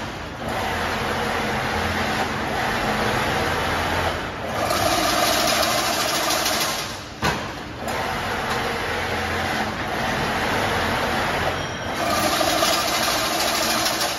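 Automatic chain link fence weaving machine running: a steady mechanical whirring and clatter that swells louder for a few seconds at a time and dips briefly between its working cycles.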